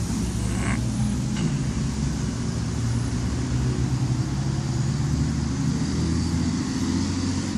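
A motor vehicle's engine running steadily with a low hum, dropping away near the end.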